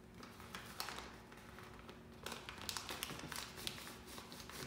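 Brown paper mailer envelope rustling and crinkling as its adhesive flap is folded and pressed shut by hand, with a scatter of small light taps against the tabletop.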